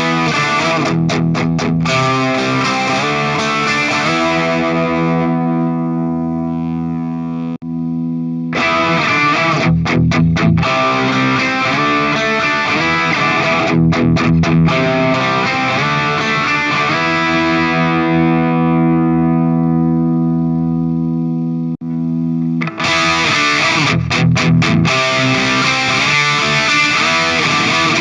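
Distorted electric guitar played through an M-Vave Tank Mini amp-modeler pedal. Choppy rhythmic riffs with short stops alternate with held chords left to ring out and fade.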